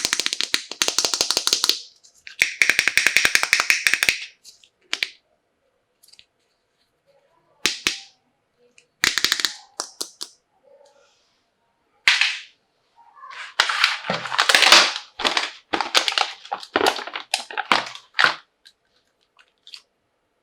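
Plastic toy doctor-kit pieces and their packaging being handled: two runs of rapid clicking in the first four seconds, then scattered short crackles and a longer stretch of crinkling and rattling toward the end.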